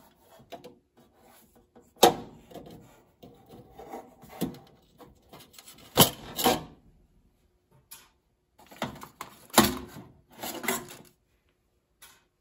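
Needle-nose pliers squeezing the plastic PCB support clips to release a relay board from a sheet-metal oven panel: scraping and rubbing broken by sharp clicks and knocks, the three loudest about four seconds apart.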